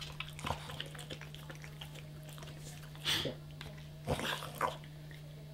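Dog sounds from the two dogs begging for a treat: a few short, noisy bursts about three seconds in and again around four to four and a half seconds in, over a steady low hum.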